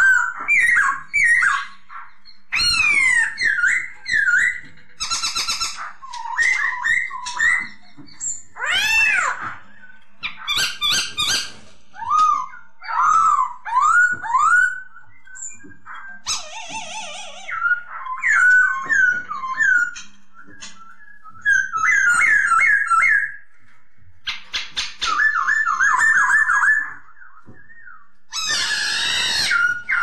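Black-throated laughingthrush (poksay Hongkong) singing: a long run of loud, varied whistled phrases that slur up and down in pitch, broken by short gaps and mixed with harsh rasping notes.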